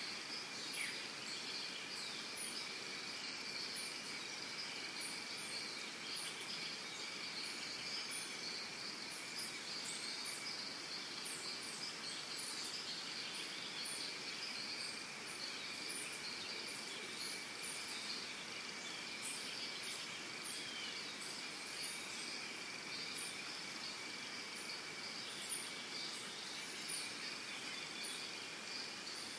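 Steady, continuous high-pitched insect chorus, with short bird chirps and an occasional gliding bird call over it.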